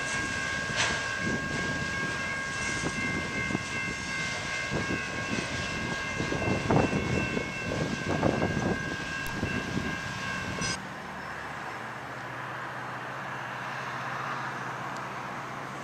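Freight train of autorack cars rolling past, with irregular wheel clatter on the rails and a steady high-pitched tone over it. It cuts off abruptly about eleven seconds in, giving way to quieter street noise with a low steady hum.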